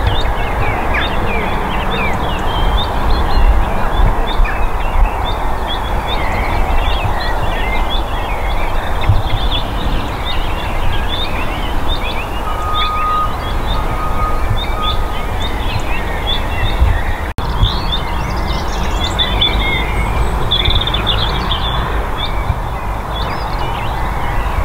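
Small birds chirping and twittering continuously over a loud, steady rumble of background noise.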